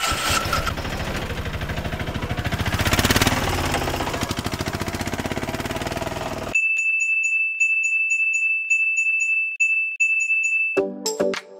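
A truck engine sound effect: a rough, fast, even pulsing for about six and a half seconds. It cuts off suddenly into a steady high electronic tone with quick regular ticks over it, and background music comes back near the end.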